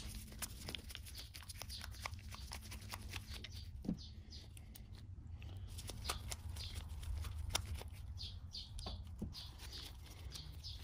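Small irregular clicks, taps and light scrapes of a screwdriver and small metal parts being worked inside a Ford 2N tractor's front-mount distributor housing as the old points and condenser come out.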